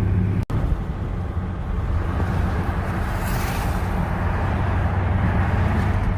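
Steady low hum of a Mercedes-AMG GLE 63 S Coupé being driven, engine and road noise heard from the cabin. The sound cuts out for a split second about half a second in.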